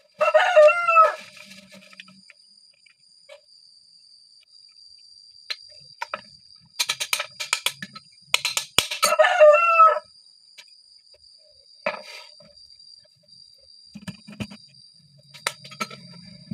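A rooster crowing twice, once at the start and again about nine seconds later, each call about a second long. In between and after come clicks and a brief clatter of metal pump parts being handled.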